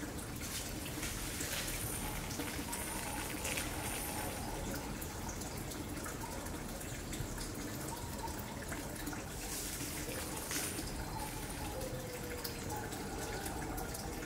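Steady trickling, running water.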